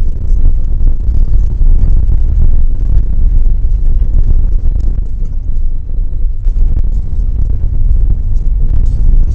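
Heavy, uneven low rumble of a tow rig travelling over a dirt road, picked up by a camera mounted low at the tow hitch. It is road and wind noise rather than a clear engine note, with a short dip about six seconds in.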